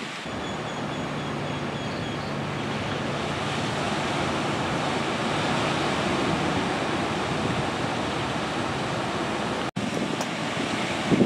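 Ocean surf breaking and washing up the beach, a steady rushing noise mixed with wind on the microphone. The sound drops out for an instant near the end.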